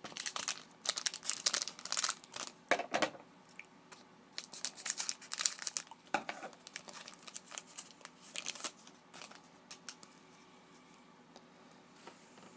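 A 2011-12 Panini Contenders trading-card pack wrapper being torn open and crinkled by hand, in two spells of crackling with a short pause between them, then quiet handling near the end.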